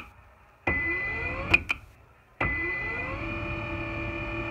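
Bulat Stair Friend stairlift drive motor starting with a rising whine, running for under a second, then cutting out with a sharp click; after a short pause it starts again with a rising whine and runs steadily. The repeated stopping is the fault this lift shows when it is run from its remote.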